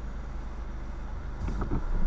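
Steady low hum inside a stationary car's cabin, growing louder near the end, with a short knock about one and a half seconds in.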